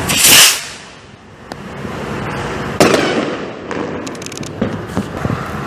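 Fireworks going off: a loud hissing burst at the start, a sharp bang a little under three seconds in, then a quick run of small crackling pops.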